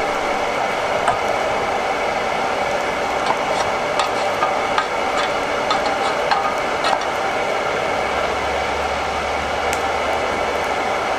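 Red-hot scrap steel plunged into a tank of quench oil to warm the oil: scattered crackles and pops as the oil flares, over a steady rushing hiss.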